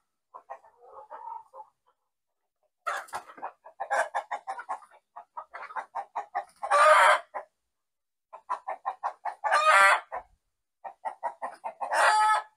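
A chicken cackling: a few soft clucks, then three runs of quick clucks, each ending in a long, loud squawk.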